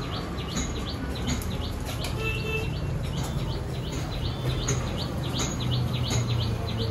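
A small bird chirping over and over, two to three short high chirps a second, over a steady low hum.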